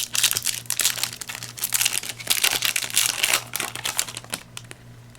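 Foil Yu-Gi-Oh booster pack wrapper crinkling as it is torn open and worked by hand, a busy crackling rustle that stops about four and a half seconds in.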